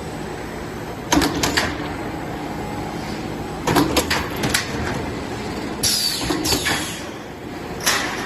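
Stud and track roll forming machine running with a steady hum, broken four times, about every two seconds, by loud bursts of metallic clanking and scraping.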